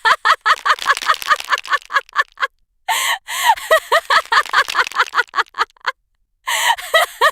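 A monkey chattering: rapid runs of short, pitched hooting calls, about four or five a second, in three bursts with brief pauses between them.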